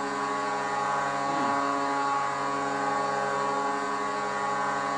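Vancouver Canucks goal horn sounding one long, steady blast: a deep, multi-toned horn chord.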